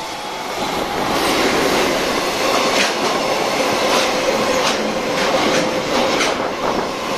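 Freight train of tank wagons hauled by an electric locomotive passing close by at speed. It grows louder in the first second or so as the locomotive arrives. The wheels then rumble steadily on the rails, with sharp clacks about once a second as the wagons cross rail joints.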